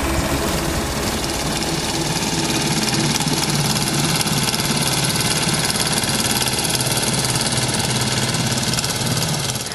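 Small diesel engine of a walk-behind double-drum vibratory road roller running steadily.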